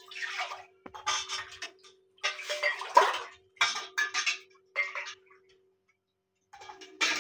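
A steel ladle scooping thin yogurt lassi from a steel pot and pouring it into a steel tumbler: several short pours of liquid splashing into the cup, with clinks of the ladle against the metal.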